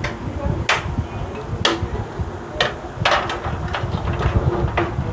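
Irregular sharp knocks and clicks of hard parts being handled and set down while a desktop PC is assembled, about seven in a few seconds, over a steady low rumble.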